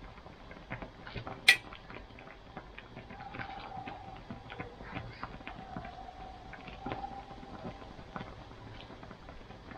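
Metal ladle scooping sour pork broth from a stainless pan and pouring it into a glass bowl: small splashes and light clinks, with one sharp clink of metal on glass or pan about a second and a half in.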